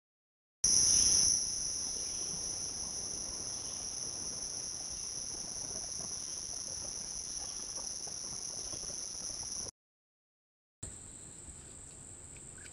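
Steady, high-pitched chorus of insects buzzing without a break. It drops out for about a second near the end and comes back as a different chorus at a somewhat different pitch.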